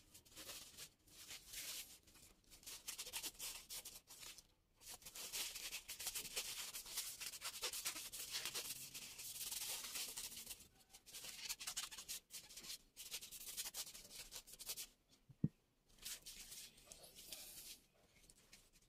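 Paper towel rubbed along the steel shaft of an electric fan motor's rotor, wiping it clean: scratchy rubbing in several long stretches with short pauses, and one sharp tap about fifteen seconds in.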